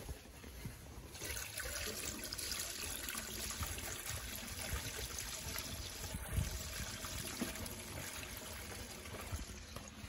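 Liquid poured from a plastic jerrycan through a metal funnel into a JCB 3DX backhoe's tank, a steady pouring sound that starts about a second in.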